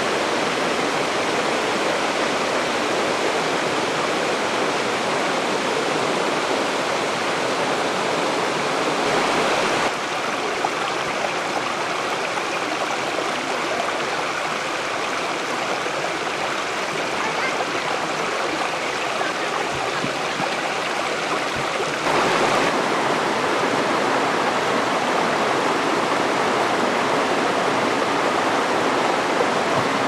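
Water of a rocky stream and waterfall rushing and splashing over boulders: a steady wash of noise that drops a little about a third of the way through and comes back up about two-thirds of the way through.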